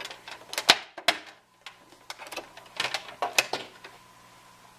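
Electrical cord being unwound from around a sewing machine: the cable and its plugs rustling and knocking against the machine in irregular clicks, the loudest knock under a second in and another cluster of taps around three seconds in.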